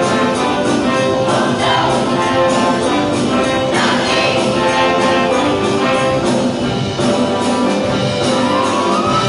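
Show choir singing with band accompaniment that includes brass, over a steady beat. A rising slide in pitch begins near the end.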